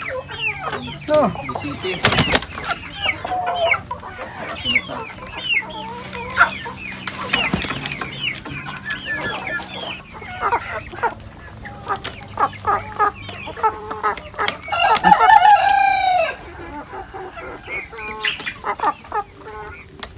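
Many chickens clucking all through, with a rooster crowing once for under two seconds about fifteen seconds in. Two brief louder noises stand out about two and seven seconds in.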